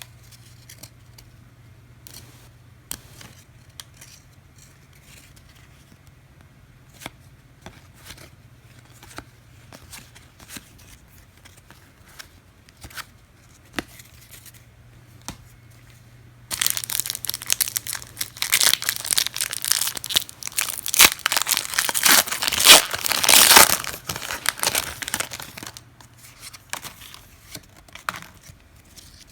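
A trading-card pack wrapper being torn open and crinkled: a loud run of tearing and crackling starts about two thirds of the way in and lasts several seconds. Before it there are only faint scattered clicks of cards being handled.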